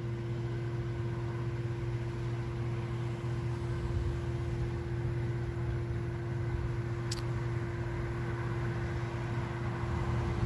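A steady mechanical hum with a constant low drone and a held tone, unchanging throughout, and one brief click about seven seconds in.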